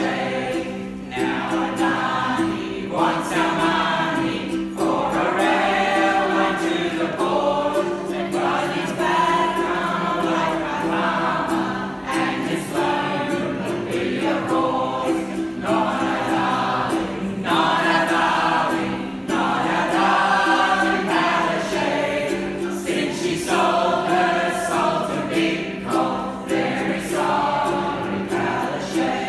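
A small group of men and women singing a song together, accompanied by a strummed ukulele.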